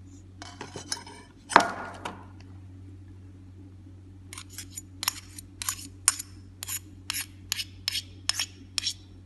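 A spoon knocking and tapping against a stainless steel mixing bowl as butter is scooped and tapped off into it. There is a quick cluster of clinks, then one loud knock about a second and a half in. From about four seconds there is a run of about a dozen sharp taps, roughly two a second.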